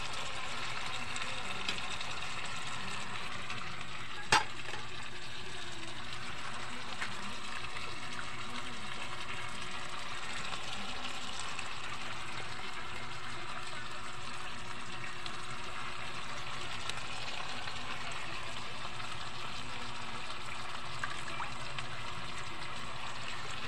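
Shredded cabbage frying in a black wok over a wood fire: a steady, even sizzle. One sharp click comes about four seconds in.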